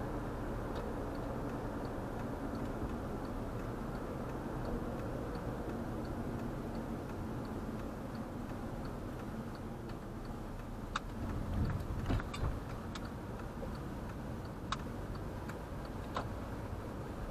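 A car's turn-signal indicator ticking evenly, about three times a second, over steady road and engine noise inside the cabin. In the second half come a handful of louder clicks and knocks.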